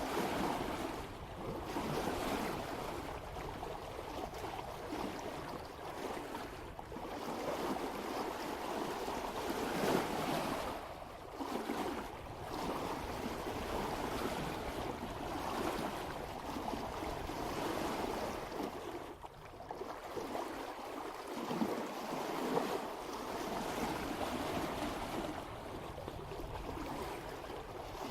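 Water washing and splashing along the hull of a sailboat under sail in a light following breeze, swelling and easing every few seconds, with a low wind rumble on the microphone.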